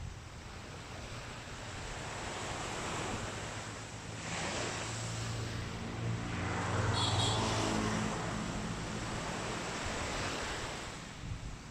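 Waves washing onto a beach in a steady surf hiss. From about four seconds in, a motor engine's hum rises, is loudest around seven seconds, and fades again.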